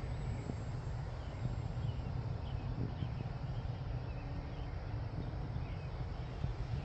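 Steady low wind rumble on the microphone, with a few faint bird chirps over it.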